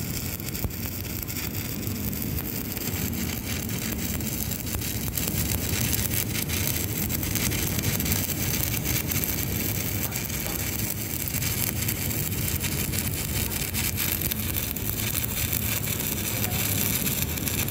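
Stick (SMAW) welding arc crackling steadily, burning an LB-52 (E7016) low-hydrogen electrode at about 80–90 A.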